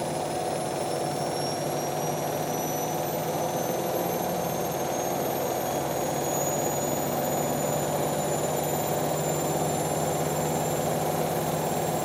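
A Hotpoint WD440P and a Hoover Nextra washer-dryer running together in a 1400 rpm spin race: a steady hum with a high motor whine that slowly rises in pitch.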